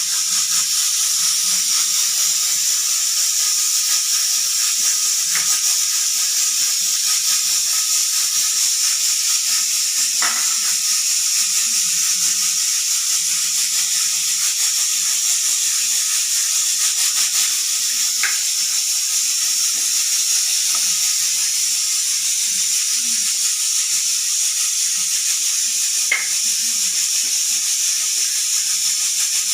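Pressure cooker venting steam through its whistle weight: a steady, loud hiss, the sign the cooker is at full pressure, with a few faint clicks.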